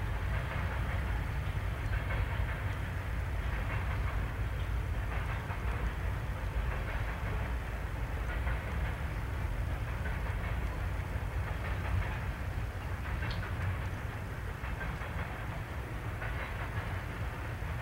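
Freight train of open-top coal cars rolling past: a steady rumble of steel wheels on the rails.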